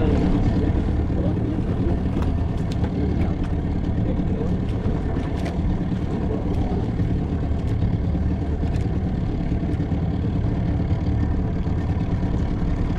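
Boat engine running at a steady speed, a constant low drone with a few faint clicks over it.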